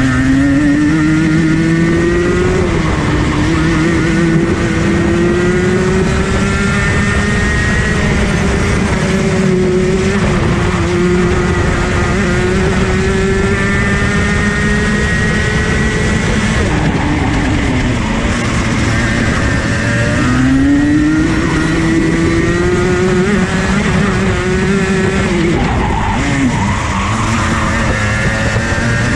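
Rotax Junior Max Evo kart's 125cc two-stroke single at speed on track, heard from onboard. The revs climb slowly along the straights and fall back for the corners, with a sharp drop about 26 seconds in before they pull up again near the end.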